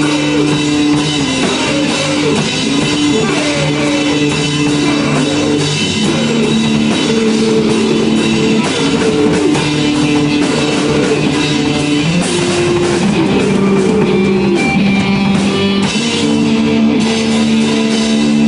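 Live rock jam on electric guitar and drum kit: loud, distorted guitar chords and bent notes over steady drumming with cymbals.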